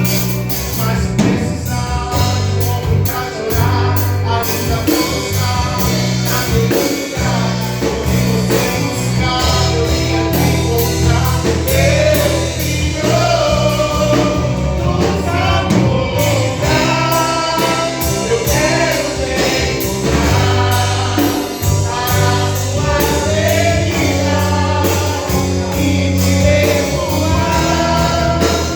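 Gospel band music: several voices singing a melody over bass and accompaniment with a steady beat.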